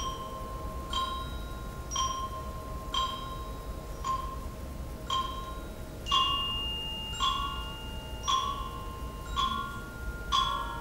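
Tuned mallet percussion playing single ringing notes about once a second, each note sounding on and overlapping the next. From about six seconds in the notes come louder and a long held high tone joins them.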